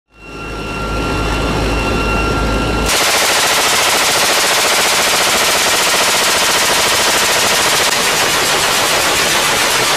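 A GAU-21 (FN M3M) .50 calibre machine gun firing long, continuous automatic bursts from a helicopter door mount. For about the first three seconds a steady high whine sits over a deep rumble; about three seconds in the sound changes abruptly to dense, unbroken rapid fire.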